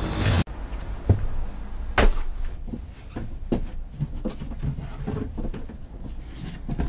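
The tail of a music intro cuts off just after the start, then come knocks and clicks of a boat-cabin storage locker and a hard plastic waterproof case being handled and unlatched: a sharp knock about a second in, a louder one about two seconds in, then lighter clicks and taps.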